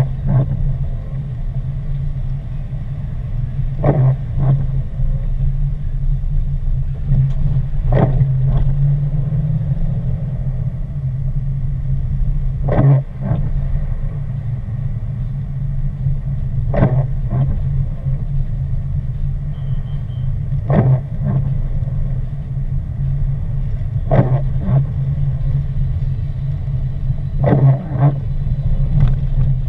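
Steady low rumble of a car driving on a wet road, heard from inside the cabin, with the windshield wipers sweeping across the glass about every four seconds, each sweep a short sharp sound.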